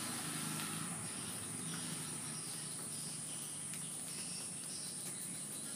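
Steady, high-pitched, unbroken drone of a chorus of insects.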